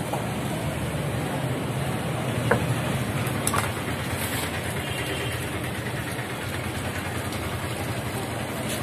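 Steady background noise of street traffic, with two short knocks about two and a half and three and a half seconds in.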